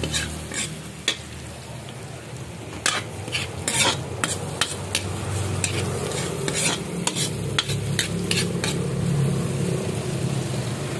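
Metal spatula scraping and knocking against a metal pan while garlic, onion and ginger sauté in hot oil, with a sizzle underneath. The knocks come irregularly, several a second, busiest around the middle.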